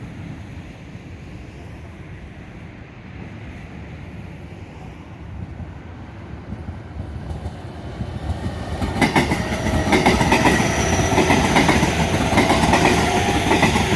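JR 315 series electric train running through the station without stopping: a low rumble of its approach that swells sharply about nine seconds in into loud wheel clatter over the rail joints, with steady whining tones over it.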